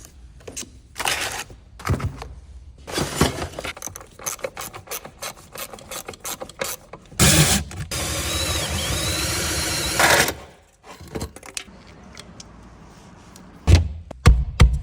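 Installation work on a car: hand tools and parts clicking, knocking, rattling and rubbing, with a steady whir for about three seconds in the middle and a few loud knocks near the end.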